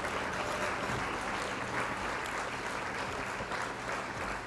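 Applause: many hands clapping in a dense, even spatter.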